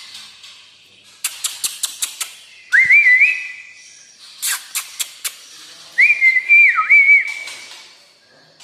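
White-rumped shama (murai batu) singing: a quick run of sharp clicking notes, then two loud whistled phrases with warbling turns about three seconds apart, with more sharp clicks between them.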